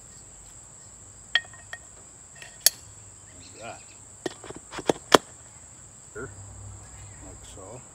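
Steel cart parts (axle and wheel hardware) clinking and knocking as they are handled, with several sharp knocks, the loudest about a third of the way in and about two thirds in. Under it runs a steady, high-pitched insect chorus.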